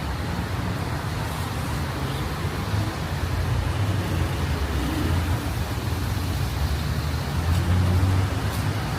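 Steady rumble of street traffic, with cars running and passing.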